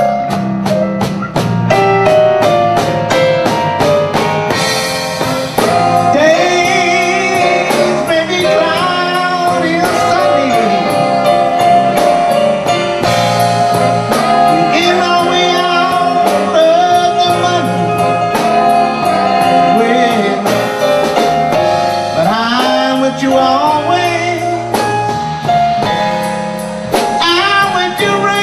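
Male vocalist singing a slow blues-jazz standard with a live band of horns and drums, over a steady beat with long held notes.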